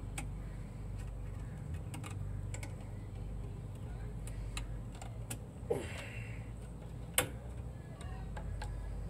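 Scattered light metallic clicks and taps of drum brake shoes and springs being handled and levered with a screwdriver, with a sharper clink about seven seconds in, over a steady low hum.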